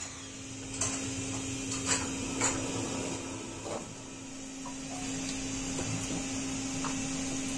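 Raw animal lungs being handled in a plastic basin of water, with a few short splashes and knocks, over a steady low hum.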